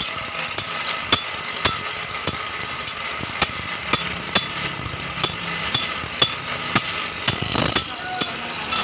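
Small electric grinder running with a steady whine as a bolo knife blade is ground on its wheel, with a sharp click about twice a second.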